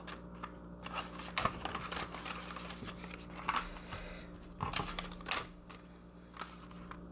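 Paper banknotes rustling and crinkling in irregular short swishes as a stack of bills is handled and flipped through by hand.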